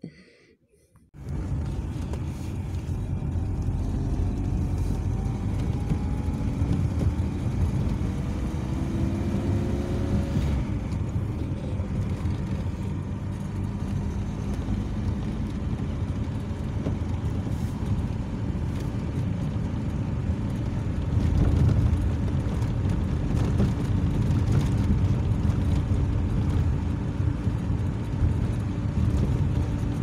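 Car interior: engine and tyre road noise while driving, starting about a second in. The engine's pitch rises a few times in the first ten seconds as the car gathers speed, then the drive settles into a steady rumble.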